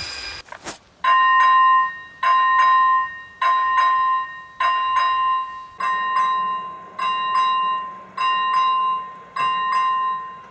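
Czech level-crossing warning bell ringing in double strikes about once a second, as the crossing's barriers come down for an approaching train. It starts about a second in, after a brief rush of passing-train noise that cuts off suddenly.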